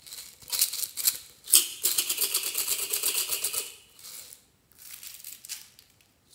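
Handling of a soda can and slime toppings. A sharp click comes about a second and a half in, followed by about two seconds of rapid, fine crackling clicks. Near the end, a palmful of sequins is dropped into a tray of foam beads with a light pattering.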